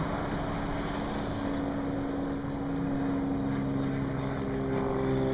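A motorboat's engine running steadily, its pitch shifting a little about halfway through, over a noisy haze.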